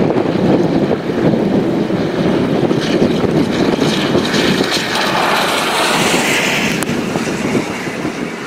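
Strong storm wind buffeting the microphone, a loud unsteady rush. A brighter hiss swells and fades between about five and seven seconds in.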